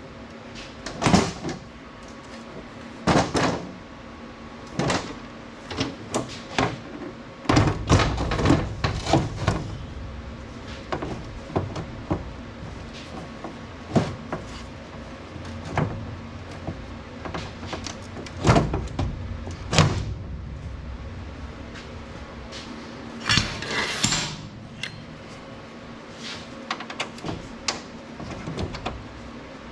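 Irregular metallic clanks, knocks and rattles of a folding aluminum wheelchair ramp being handled as its hinge pins are fitted back in, some hits heavier with a dull thud. A faint steady hum runs underneath.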